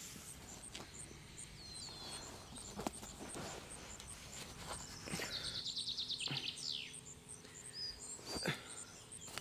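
Night-time outdoor ambience: insects chirping steadily in a high, regular tick about four times a second, with short falling bird chirps, a rapid trill about five seconds in ending in a falling sweep, and a few sharp clicks and rustles, the loudest near the end.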